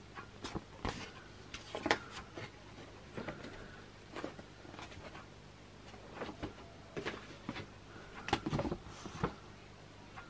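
Folded paper map rustling and crinkling as it is unfolded and handled: irregular crackles, with a louder cluster about two seconds in and another near the end.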